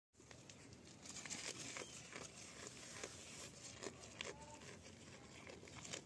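Goat biting and tearing green leaves off a stem and chewing them: a faint, irregular run of crisp rustling and crunching clicks.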